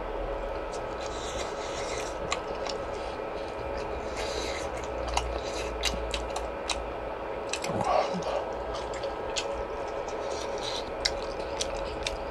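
Eating sounds of a close-miked mukbang of skewered fish cake soup: chewing, with frequent short sharp clicks and scrapes, over a steady background hum.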